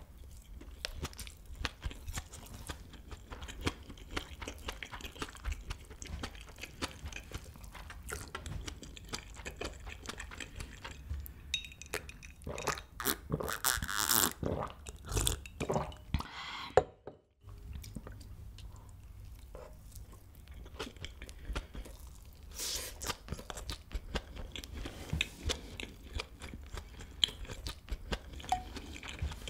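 Close-miked chewing of cheesy kimchi fried rice: wet mouth clicks and bites. About halfway through there is a louder stretch of sipping and swallowing from a glass of iced drink, and the sound cuts out for a moment just after.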